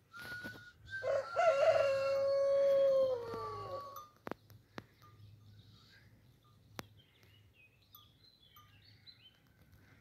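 A rooster crowing once: a long cock-a-doodle-doo of about three seconds, its held final note falling in pitch at the end. Faint scattered bird chirps follow.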